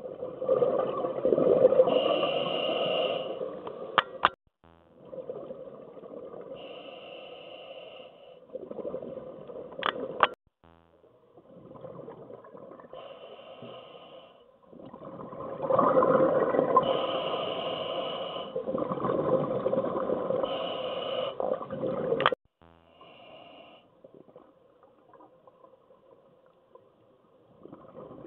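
Scuba breathing heard underwater through a regulator: short hissing inhalations and long bubbling exhalations. The exhalations are loudest near the start and again about halfway through, with a few sharp clicks among them.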